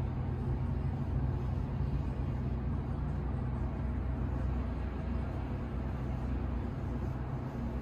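Steady low outdoor rumble of distant traffic and engines, with a faint hum running through it.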